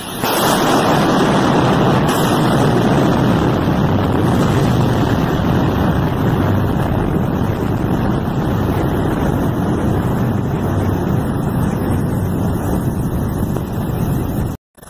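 Blast of air from an explosion rushing down a tunnel and buffeting the microphone: a loud, even rush of wind that sets in suddenly, eases slowly over about fourteen seconds, then cuts off abruptly.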